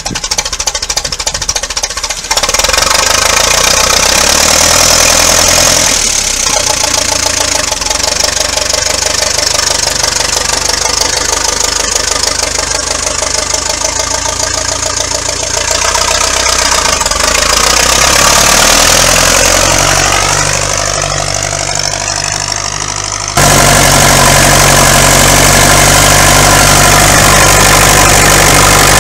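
A 1951 Ferguson TED20 tractor's four-cylinder engine running steadily as the tractor is driven. Near the end it becomes louder and very even.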